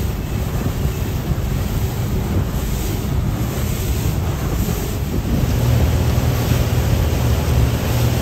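Motorboat underway: wind buffeting the microphone and water rushing past the hull over the low, steady hum of the boat's outboard engine, which gets louder about five and a half seconds in.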